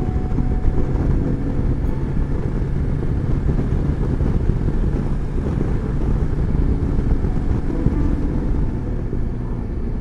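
BMW S1000XR inline-four motorcycle engine running steadily at road speed, with wind rushing over the microphone.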